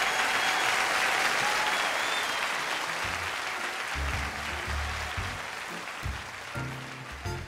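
Audience applause, strongest at first and fading away, with background music and a low bass line coming in about three seconds in.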